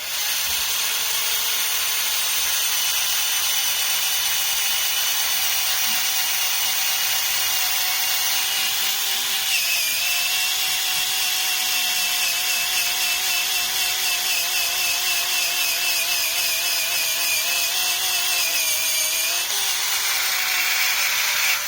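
Battery-powered drill boring a hole through a piece of wood, its motor whining steadily with a wavering pitch that dips under load about ten seconds in and again near the end, then stopping abruptly.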